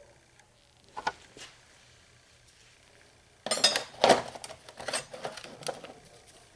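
Metal hand tools clinking and rattling against each other as they are handled: a single click about a second in, then a busy burst of clatter from about halfway that thins out toward the end.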